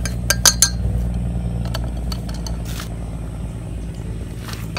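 A utensil clinking against a dish several times in the first second, then a few lighter clicks, over a steady low rumble.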